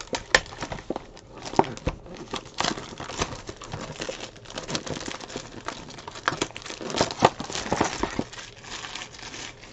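Plastic shrink-wrap crinkling and tearing as it is ripped and peeled off a cardboard trading card box by hand, with no knife.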